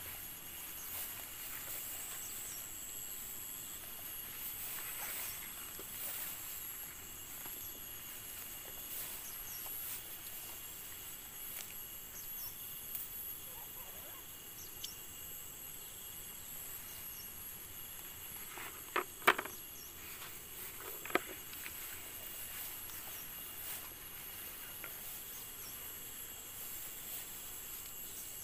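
Field insects, crickets or similar, making a steady high-pitched chirring. A few sharp clicks or knocks stand out about two-thirds of the way in.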